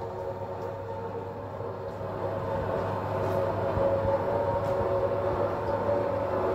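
Gauge 1 Märklin E91 electric locomotive model with an ESU LokSound V4 XL sound decoder running with its freight wagons rolling on the track: a steady electric hum with several held tones, growing louder from about two seconds in as the locomotive approaches.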